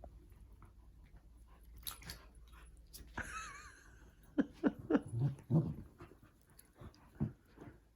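Two goldendoodles play-wrestling, panting and scuffling, with a wavering whine about three seconds in and then a run of short, loud play-growls and yips near the middle and one more near the end.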